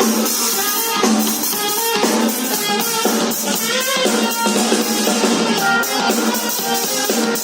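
A saxophone plays a melody over a backing track with a steady drum-kit beat. The sound is thin, with almost no deep bass.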